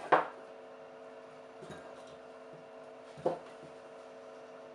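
Kitchen knife cutting apple pieces directly on a wooden tabletop, with no chopping board: a few short knocks of the blade against the wood, one right at the start, a faint one, and a sharp one about three seconds in. A faint steady hum runs underneath.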